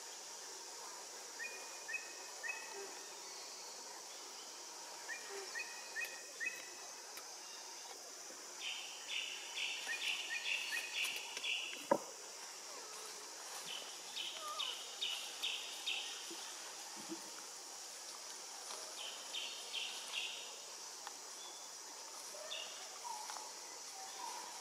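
Tropical forest ambience: a steady high insect drone with repeated short bird calls. Three louder bursts of rapid chirping notes come about a third of the way in, a little past halfway, and again later on. A single sharp click sounds about midway.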